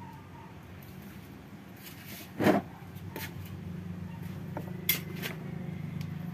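Hands straining at the exposed variator and crankshaft of a Yamaha Mio Aerox 155 scooter, giving a short loud clunk about two and a half seconds in and a few sharp metal clicks after it. The crankshaft will not turn, the stiffness behind the scooter's error 12, which the mechanic suspects lies in the piston.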